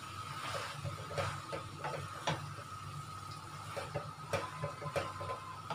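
Wooden spatula knocking and scraping against a wok in irregular taps as soft boiled rice vermicelli (bee hoon) is tossed with vegetables. A faint steady high tone runs underneath.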